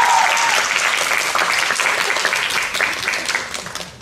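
Audience applauding, the clapping slowly dying away toward the end. Music fades out about half a second in.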